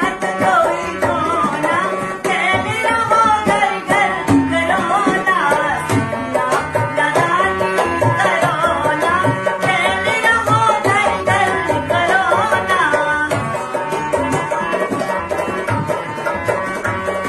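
A woman sings a Hindi folk song, accompanied by a harmonium and a dholak drum keeping a steady rhythm.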